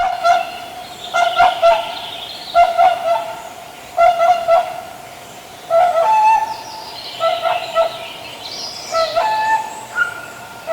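Swans honking: short nasal honks, often in pairs or quick runs of three or four, repeating about every second or so.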